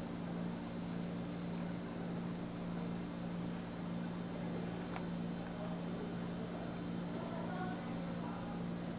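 A steady mechanical hum with a few fixed low tones over a faint hiss, like a running electric motor. A faint click about five seconds in.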